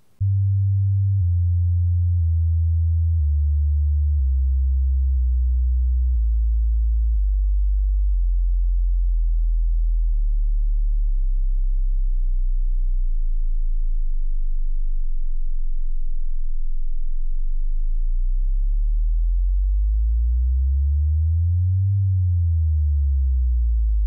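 Deep, pure electronic tones that start suddenly and slide slowly down in pitch over the first several seconds, then hold low before a few slow rises and falls near the end.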